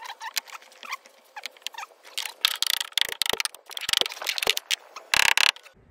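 Vinyl floor plank being worked into place by hand and knocked home with a tapping block and mallet: a run of irregular clicks, knocks and scrapes, the loudest cluster about five seconds in.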